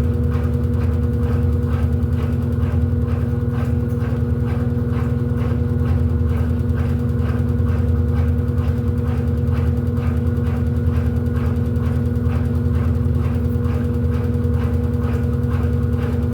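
Electrolux LED14 14 kg washing machine running on its quick programme: a steady motor hum and rumble with a regular knock about two to three times a second.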